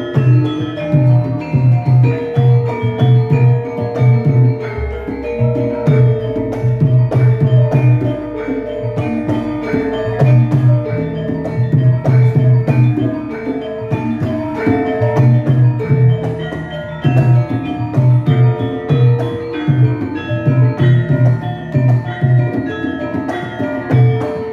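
Javanese gamelan ensemble playing a gending: struck bronze metallophones ring out a stepping melody over a steady low rhythmic pulse.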